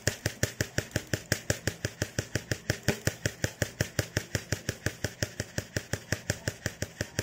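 Rapid, even tapping on a plastic rice basin, about seven taps a second, jostling the rice so the powdery dust left by rice weevils settles apart from the grains.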